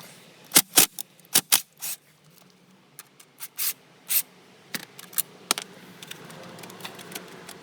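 Irregular sharp clicks and light metallic scrapes of hand tools and small 8 mm screws being worked loose and handled, a cluster in the first two seconds and more a few seconds later.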